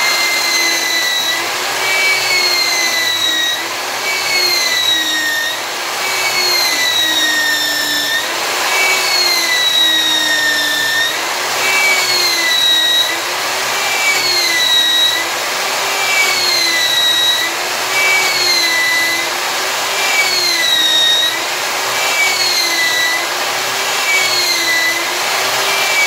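Electric drill spinning a sandpaper-wrapped steel rod inside a revolver barrel to polish it. The motor whine rises and dips in pitch over and over, about once every second or so, as the tool works in the bore.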